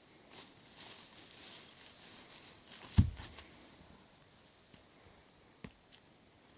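Light rustling and scuffing, then one heavy thump about three seconds in and a single sharp knock later on.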